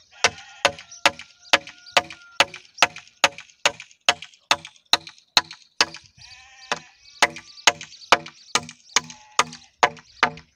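Claw hammer driving a nail through a timber crossbeam into a wooden post: a steady run of ringing blows, about two and a half a second, with a short pause about six seconds in.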